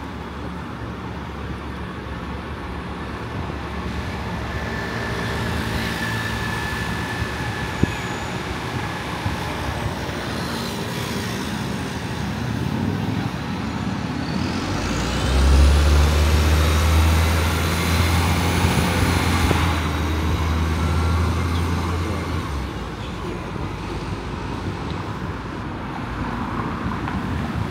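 City street traffic: steady road noise with engines going by. About halfway through, a heavy vehicle's deep engine drone becomes the loudest sound for several seconds, with a high whine rising and falling as it passes.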